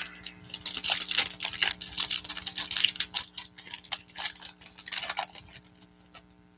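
Trading-card pack wrapper from a 2021-22 NBA Chronicles hobby box being torn open and crinkled: a dense run of crackles that stops about five and a half seconds in.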